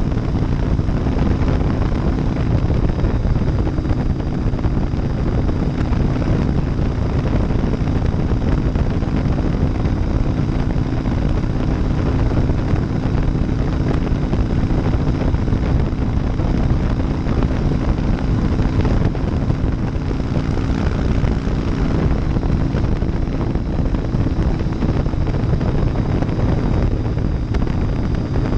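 2001 Harley-Davidson Softail Deuce's 88-cubic-inch V-twin running at a steady pace through Vance & Hines baffles while riding on a road, mixed with wind rush on the microphone.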